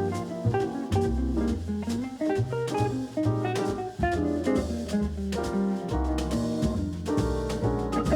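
Background music: an instrumental jazz tune with guitar, a walking bass and a drum kit keeping a steady beat.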